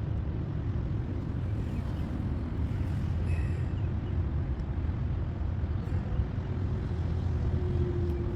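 Steady low rumble, with a faint short high chirp a little over three seconds in.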